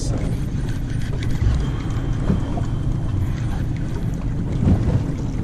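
Wind buffeting a camera microphone on a boat at sea: a steady low rumble.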